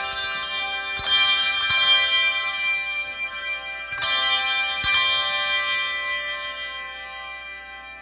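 Handbell choir ringing chords on brass handbells: struck chords about one second in and again shortly after, two more about four and five seconds in, then the bells ring on and slowly fade away.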